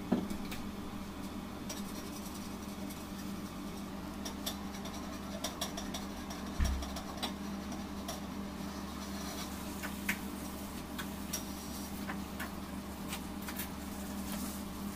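Small scattered clicks and taps of utensils and a paper piping cone being handled at a cake, over a steady low hum, with one low thump about six and a half seconds in.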